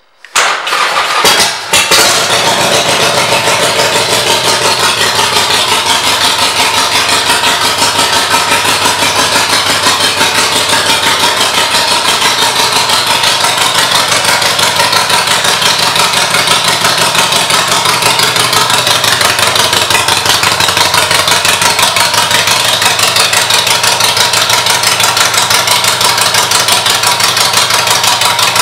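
The 2019 Harley-Davidson Iron 883's air-cooled 883 cc V-twin, fitted with an aftermarket exhaust and air cleaner, is started: it catches within the first two seconds. It then settles into a loud, steady idle.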